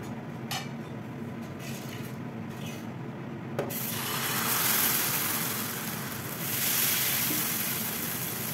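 Ragi (finger millet) dosa batter sizzles as it hits a hot non-stick pan, starting suddenly about three and a half seconds in. A steel ladle rubs over the batter as it is spread in circles, and the hiss swells twice.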